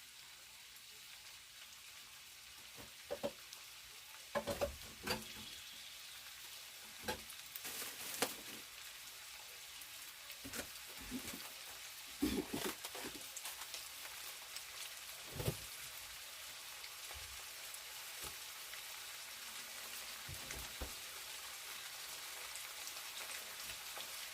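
Pork sizzling as it fries in hot oil with garlic, a steady hiss, with several sharp clatters of stirring in the pot in the first two thirds.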